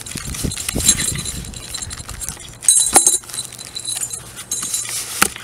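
Hands rummaging in a cardboard engine box's styrofoam packing and plastic bags: crinkling plastic, styrofoam rubbing and light clinks, with a sharp knock about three seconds in and another near the end.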